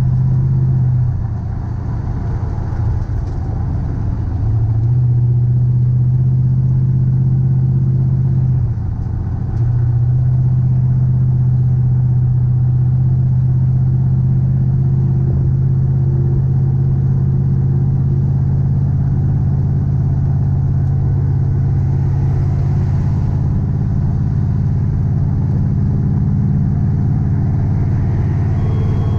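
Vehicle cruising at highway speed: a steady low engine drone over tyre and road noise. The drone drops away briefly about a second in and again around nine seconds, then comes back.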